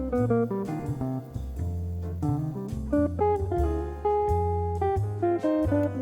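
Background music: a plucked guitar melody over a bass line in a relaxed, jazzy style.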